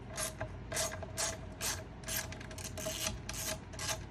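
Ratcheting hand tool clicking, about two strokes a second, while working the screws of a VW Type 2 bus vent window.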